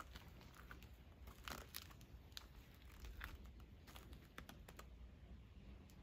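Near silence: faint scattered ticks and crinkles over a low steady rumble.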